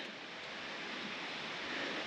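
Water from a watering can running along a new zinc gutter during a leak and flow test: a steady, even rushing hiss.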